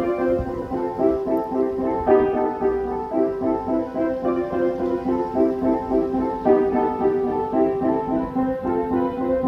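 Upright piano played, a continuous run of quick repeated notes over sustained chords.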